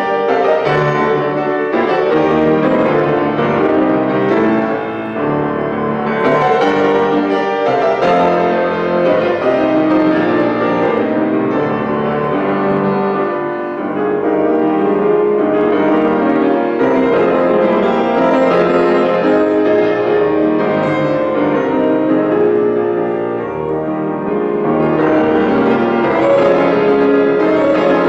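Steinway concert grand piano played solo in a loud, dense classical passage, with brief drops in loudness at the ends of phrases.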